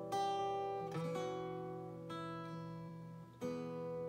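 Solo acoustic guitar playing slow chords, each struck and left to ring out, about one a second, with a brief gap before a fresh chord about three and a half seconds in.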